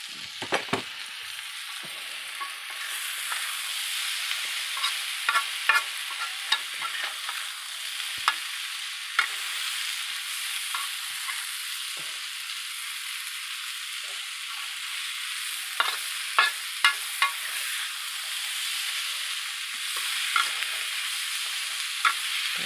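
Tempe stir-frying in sweet soy sauce in a black wok: a steady sizzle, with a metal spatula scraping and clinking against the pan. The clinks come in short runs, busiest about five seconds in and again about sixteen seconds in.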